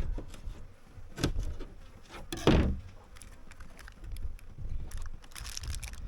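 Handling noises from food preparation: two sharp knocks, about a second in and two and a half seconds in, the second the louder, among lighter clicks and rustling.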